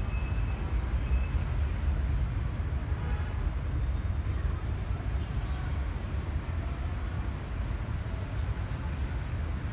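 Typhoon wind buffeting the microphone: a steady, unsteadily fluttering low rumble with a fainter hiss above it.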